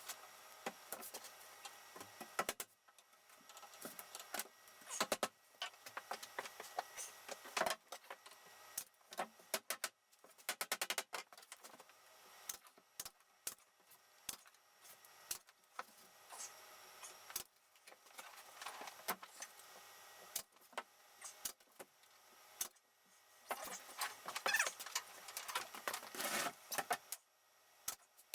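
Scattered clicks, clinks and knocks of hand work with wood and small hardware, broken by a few short rasping stretches.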